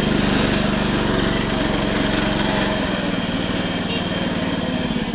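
Mini-tractor engine running steadily as the tractor moves along; its deeper drone changes about three seconds in.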